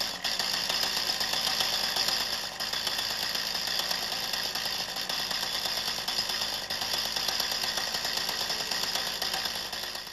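Mantis tiller's small two-stroke engine running steadily with a high buzz just after being pull-started, easing off slightly at the very end.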